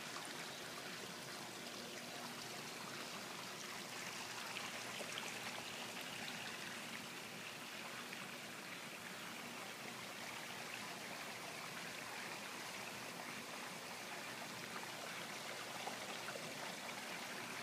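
Steady running, trickling water in a koi pond.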